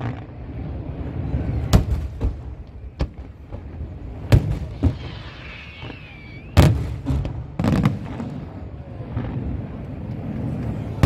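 Aerial fireworks shells bursting: a string of sharp bangs a second or two apart, the loudest about four and a half and six and a half seconds in, over a continuous low rumble. A wavering whistle sounds for about a second and a half just before the bang at six and a half seconds.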